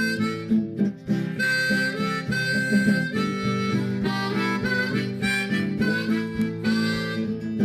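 Instrumental break of a worship song: strummed acoustic guitar chords under a harmonica playing a melody of held, bending notes.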